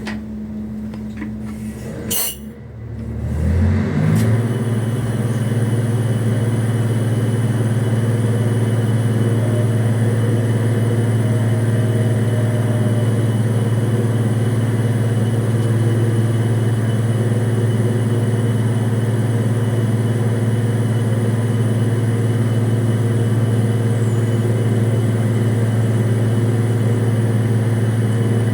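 An offshore crane's engine starting: a click, a rising whine as it winds up over about two seconds, then it settles into a steady, loud running drone.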